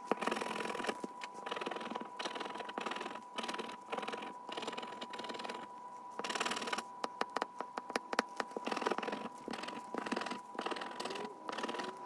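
A pink plastic scratcher tool scraping the coating off a paper scratch-off lottery ticket in short bursts of strokes, with small clicks and taps of the tool on the card.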